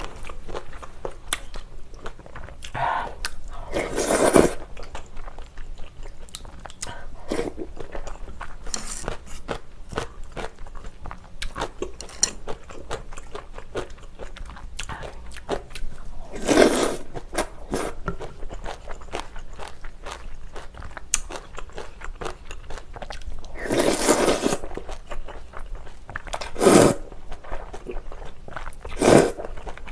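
Close-miked eating sounds: steady wet chewing and mouth clicks, broken by several loud slurps of glass noodles and spicy beef soup, about 4 s in, around 17 s, a longer one near 24 s and two more near the end.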